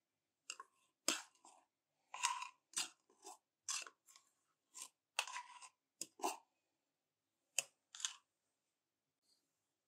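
Small metal spoon scraping thick chestnut cream out of a tin can into a glass bowl: about a dozen short scrapes and clinks, some dragging briefly, stopping about eight seconds in.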